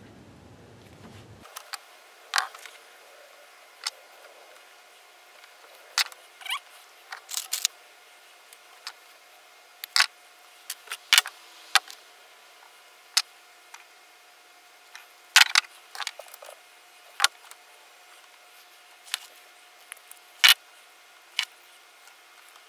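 Scattered sharp clicks and taps, irregular and a second or two apart, from small tools and wire connectors being handled during fuel-tank wiring, over a faint steady tone.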